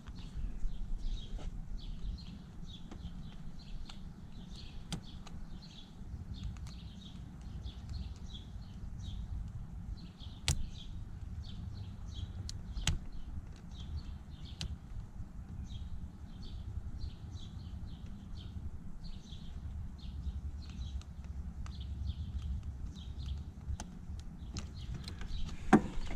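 Occasional sharp clicks of a terminal pin being worked loose from a plastic fuse-block connector, over handling rumble, with birds chirping steadily in the background.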